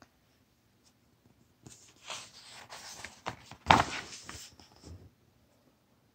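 A page of a large picture book being turned by hand: paper rustling for about three seconds, with one sharper flap of the page a little past the middle.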